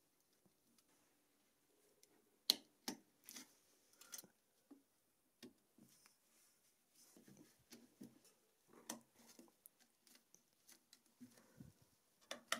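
Faint handling sounds of small plastic limit-switch cable connectors being plugged in by gloved hands: a few sharp clicks, the loudest about two and a half seconds in, then soft rustling and light knocks of cable and glove against the aluminium frame.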